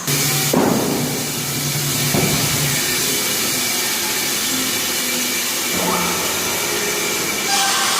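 Multi-blade sawmill machine running, a steady loud hissing mechanical noise with a few brief low surges.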